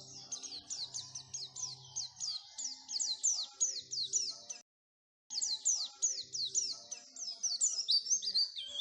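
White-eye (pleci) singing: a fast run of high, falling chirps, about four or five a second, broken by a half-second gap of silence a little past the middle.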